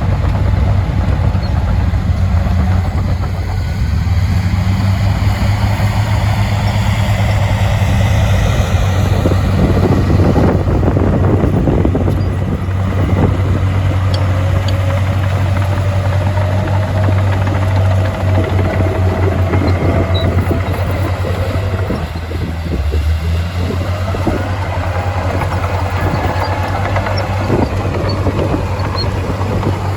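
Heavy diesel earthmoving machinery running under load, with a strong steady low engine drone and fainter high whines that slowly rise and fall.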